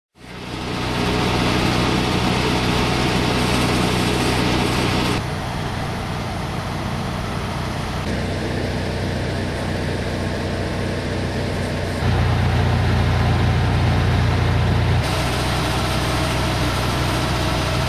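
Sewer inspection truck's engine idling steadily with a low hum, the level and tone shifting abruptly several times.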